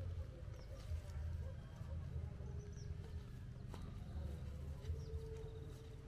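Footsteps through grass, with a few faint, short bird chirps.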